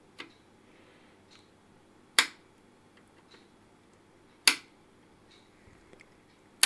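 Three sharp clicks about two seconds apart, with a few fainter ticks between, from clip leads being handled on a tube amplifier's output transformer impedance taps.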